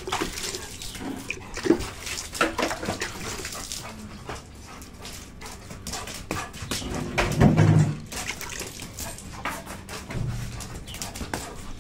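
Black Labrador whimpering, among scattered clicks and scuffs, with a louder low sound lasting about a second around seven and a half seconds in.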